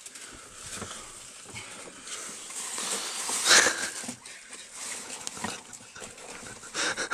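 Rustling and shuffling of sheets and bedding as a man clambers onto an upper sleeper berth and settles down, with a louder rustle about three and a half seconds in.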